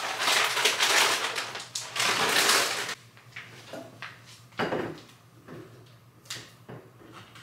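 Crinkling and rustling of snack packets and bags being put away into a wire basket, for about three seconds. Then a few light knocks and clicks as things are handled on the kitchen counter, the clearest knock about halfway through.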